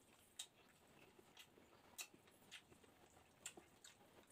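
Faint eating sounds of a man eating rice with his bare hand: soft chewing and wet mouth noises, with a few sharp clicks, three louder ones spread about a second and a half apart.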